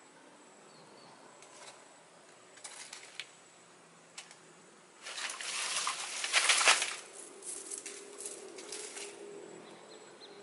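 Dry leaves and twigs rustling as they are gathered by hand, in a few short rustles and then a louder, longer rustle a little past halfway.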